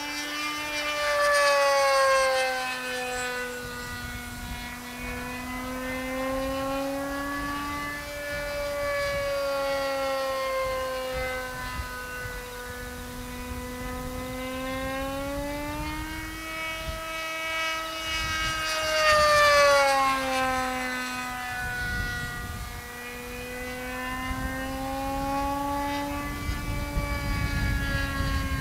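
Radio-controlled pylon racer's OS 25FX two-stroke glow engine with a Hattori muffler, running at full speed in flight. Its pitch rises and falls as the plane sweeps past, loudest about two seconds in and again around twenty seconds.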